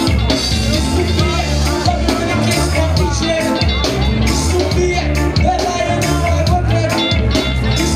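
Live reggae band playing, with electric guitar and drums over a steady bass line.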